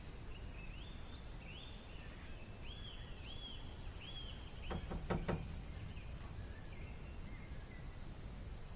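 A songbird calling a run of repeated, arched high notes, about two a second, then a few fainter notes later. A cluster of sharp clicks about five seconds in is the loudest sound, over a faint low outdoor rumble.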